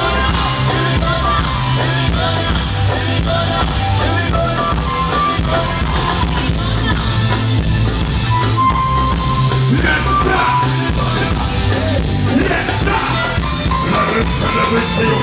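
Loud live music over a PA system at a sound check: a band with a pulsing bass line and drums, with a voice singing at times.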